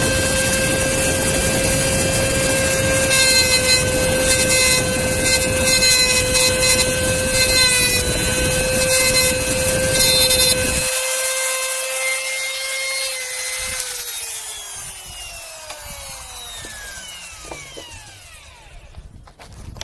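Chicago Electric rotary tool with a diamond cutoff wheel running at a steady high whine, grinding into a steel axle nail in several stretches to cut a small groove for bending it. A little past the middle the tool is switched off and its whine falls in pitch as the wheel spins down and fades.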